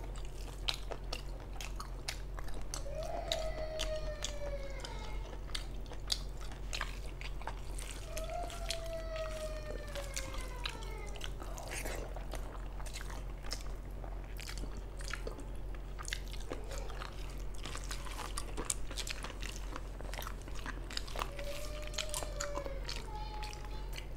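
Close-up eating sounds of rice and mutton lung curry eaten by hand: wet chewing and lip smacks with many sharp mouth clicks. Behind them come a few long cries that fall in pitch, about three seconds in, about eight seconds in, and again near the end.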